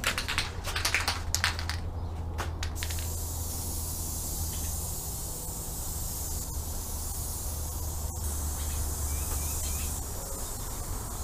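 A few seconds of quick rattling clicks, then an aerosol can of spray adhesive hissing in a long steady spray as contact adhesive is sprayed onto a seat frame and foam.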